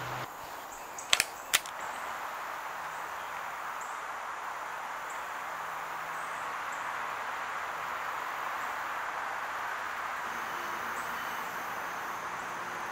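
Two sharp clicks about a third of a second apart, a little over a second in, then steady outdoor background noise.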